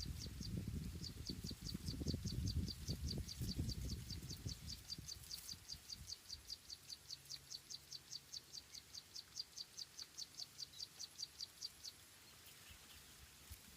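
A high, thin chirp repeated evenly about four times a second, stopping near the end, over a low rumble during the first few seconds.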